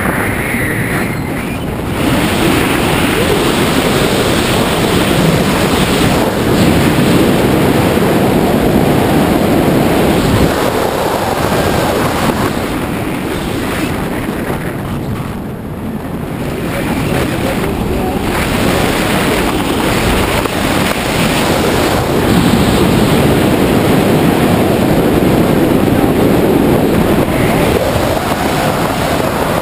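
Airflow buffeting the microphone of a camera on a tandem skydiver's wrist while gliding under an open parachute canopy. It makes a loud, steady rush that eases for a moment about halfway through and then builds again.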